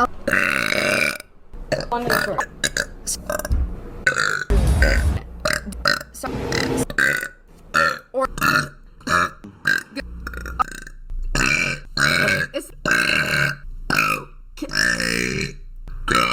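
Girls and young women burping, one burp after another in quick succession, each cut off abruptly before the next begins.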